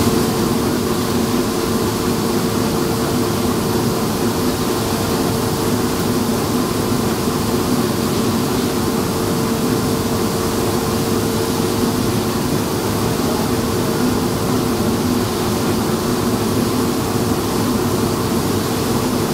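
Industrial machinery running steadily: an electric motor and gearbox drive give a loud, even hum with a constant tone over a steady rushing noise.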